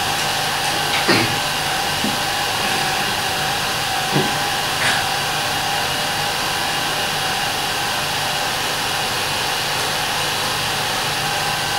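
8mm cine projector running: a steady whirring noise with a constant low hum.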